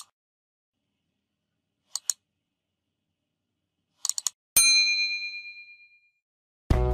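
Tap-click sound effects of a subscribe animation: one click, a double click about two seconds in, then three quick clicks. These are followed by a single bright notification-bell ding that rings out and fades over about a second and a half. Music comes in right at the end.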